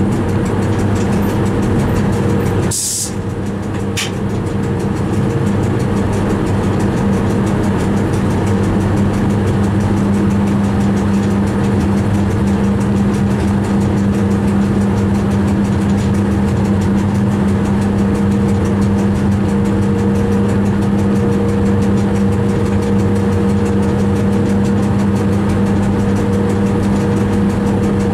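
Steady running noise of an electric train heard from inside the cab: a constant motor hum over the wheels' rumble on the rails. A brief sharp hiss cuts in about three seconds in.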